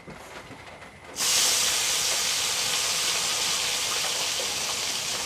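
Hot oil in a kadai sizzling as pieces of dried fish go in. The sizzle starts suddenly about a second in and holds steady, easing off slightly.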